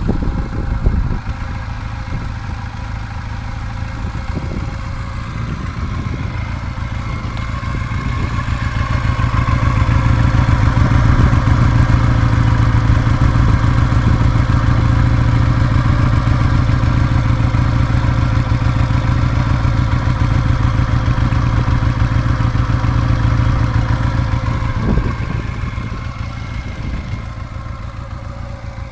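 1993 Honda CM 125 Custom's parallel-twin four-stroke engine idling steadily through its original stock exhaust. It grows louder about eight seconds in and eases back again near the end.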